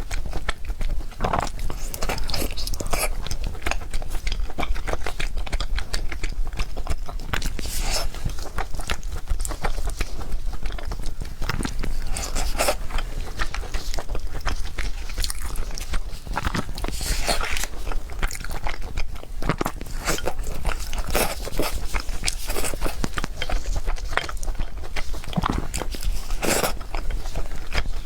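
A person chewing and biting food close to the microphone, with repeated crunchy bites every second or two among wet clicking chews.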